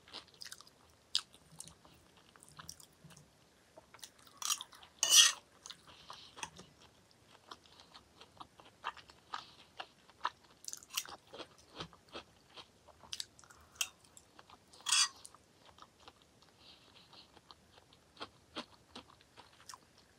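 A person chewing close to the microphone while eating peas and cottage cheese: soft, wet chewing with many small mouth clicks, and a couple of louder clicks about five and fifteen seconds in.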